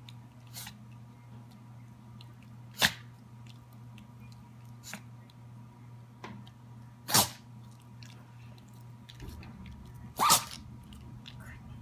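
A pet sneezing three times: short, sharp sneezes about four and three seconds apart, with a few fainter short sounds between them, over a low steady hum.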